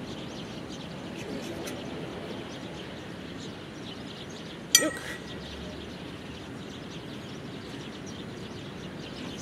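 A single sharp metallic clink with a brief ring about halfway through, typical of the two steel sai knocking together as they are handled. Steady outdoor background noise runs throughout.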